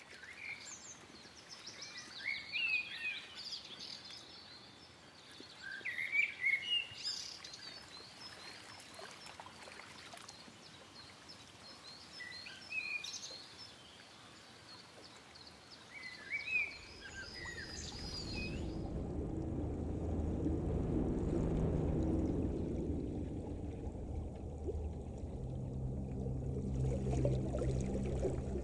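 Nature soundscape: birds chirping in short repeated bursts over a soft hiss, then, after about seventeen seconds, a low rushing underwater water sound takes over, with a steady low hum added near the end.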